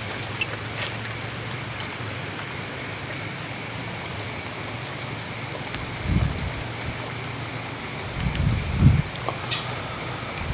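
Crickets chirring steadily in a high, finely pulsing band over a low hum, with two brief low rumbles about six and eight seconds in.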